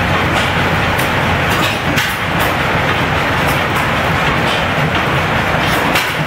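Steady mechanical clatter of running machinery, with a low hum and scattered sharp clicks throughout.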